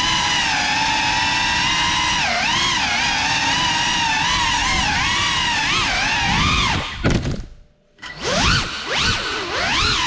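GEPRC CineLog35 cinewhoop's brushless motors and propellers whining, the pitch wavering up and down with throttle. About seven seconds in, the whine drops away almost to nothing, then comes back in several quick rising sweeps as the throttle is punched again.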